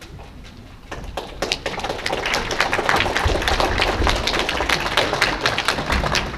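Audience applauding: a scattered patter of claps begins about a second in and swells into full applause.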